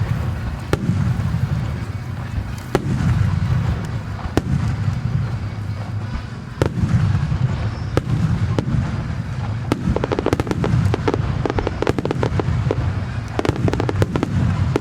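Starmine fireworks display: shells bursting one after another as deep booms with sharp cracks between them, turning into a dense, rapid crackling barrage about ten seconds in.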